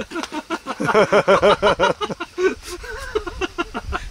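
Hearty male laughter: a fast run of 'ha-ha' pulses that tails off after about two and a half seconds into lighter, broken laughter.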